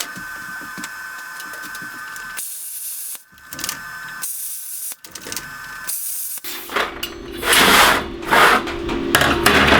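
Air plasma cutter blowing out the rivets of a ball bearing's race carrier: a steady hiss with a whine that stops and restarts several times, then a louder hissing cut over the last three seconds.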